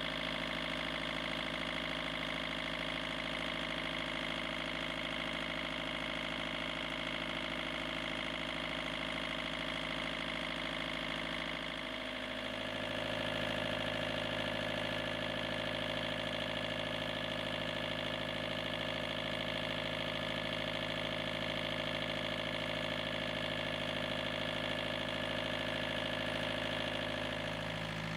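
Kubota V2203 four-cylinder diesel engine running steadily on a test stand, with the cooling fan turning. Its steady note shifts slightly about twelve seconds in.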